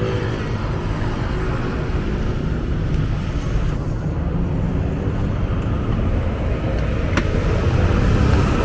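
Road traffic on a busy multi-lane city road: a steady rumble of cars and motorbikes passing. A single short click comes about seven seconds in.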